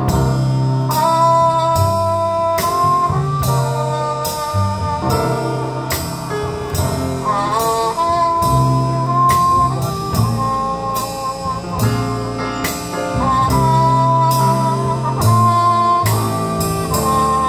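Traditional jazz band playing an instrumental passage: a horn carries a sustained melody over piano, string bass and drums keeping a steady beat.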